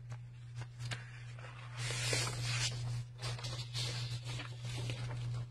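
Soft rustling twice, with a few small clicks, over a steady low hum: handling noise at a desk while the minister looks down at something.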